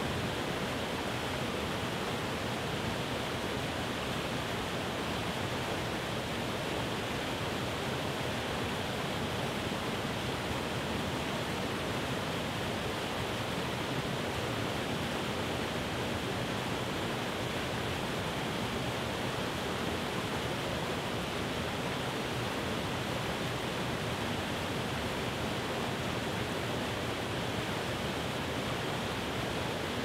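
Small waterfall cascading over rock ledges: a steady rush of falling and splashing water.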